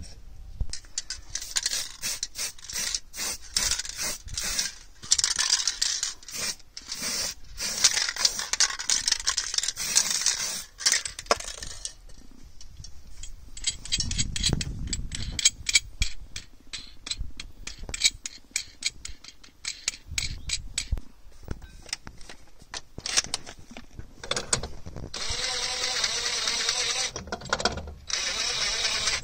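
Rapid metallic clicking and clattering of tools and wheel nuts. Near the end, a cordless drill with a socket adapter runs steadily for a couple of seconds, spinning a wheel spacer's nuts onto the hub studs.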